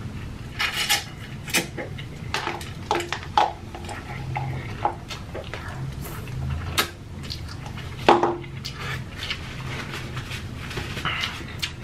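Close-miked slurping and chewing of slimy, saucy ghost pepper instant noodles: many short wet smacks and sharp mouth clicks at irregular intervals over a low steady hum.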